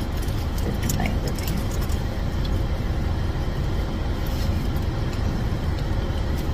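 Steady low vehicle rumble heard inside a car's cabin, with a few faint clicks and rustles of a handbag being searched through.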